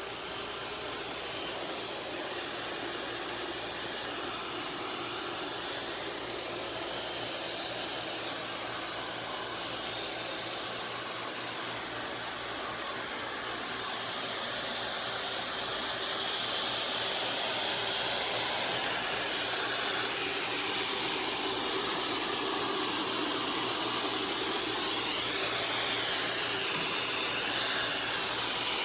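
Suction motor of the eufy S1 robot vacuum and mop system running with a steady rushing whoosh, starting abruptly and growing a little louder about halfway through.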